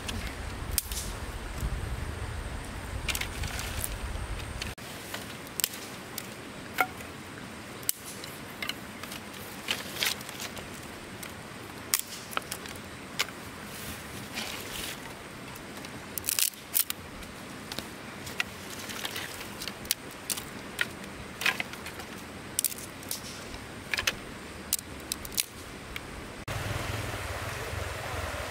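Dry sticks clicking and knocking together in irregular sharp clicks as they are handled and sorted by hand, over the steady hiss of a flowing river.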